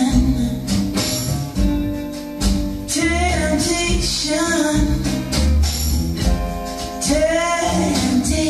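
A song with a singing voice, bass and percussion, played back from tape on a Schlumberger F500 reel-to-reel tape recorder.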